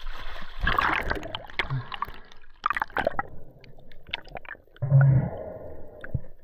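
A diver splashes into the sea, followed by bubbling, gurgling water and crackles heard underwater. A short low hum comes about five seconds in.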